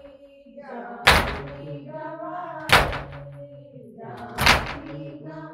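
Matam: rhythmic chest-beating by Shia mourners, three heavy slaps about 1.7 seconds apart, with a voice chanting a nauha between the strokes.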